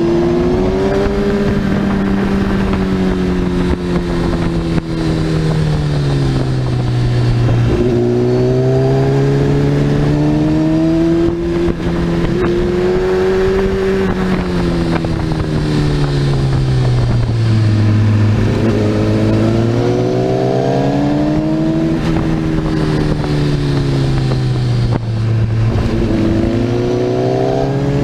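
Sport motorcycle engine heard from the rider's seat at speed through corners. Its pitch rises under throttle and falls away again about five times, with a quick drop about eight seconds in.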